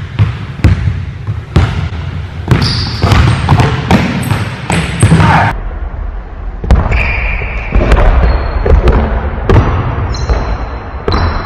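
Basketball dribbled on a hardwood gym floor, with repeated sharp bounces, interleaved with sneakers squeaking briefly on the court as the players cut and defend.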